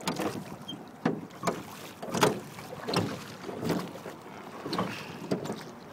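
Aluminum jon boat being rowed: the oars clunk in their oarlocks and against the metal hull in a string of sharp, irregular knocks, about one every half second to second. Wind buffets the microphone throughout.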